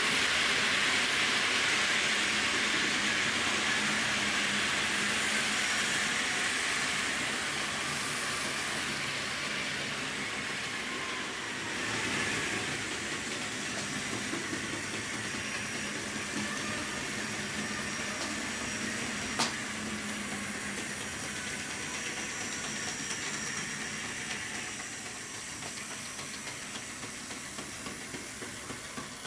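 Tyco HO-scale model train running on its track: a steady whirring rattle that slowly fades, with one sharp click about two-thirds of the way through and light, fairly regular clicks near the end.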